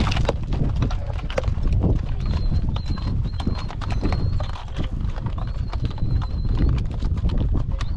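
Horses' hooves clopping on a rocky mountain trail: a string of irregular, overlapping knocks.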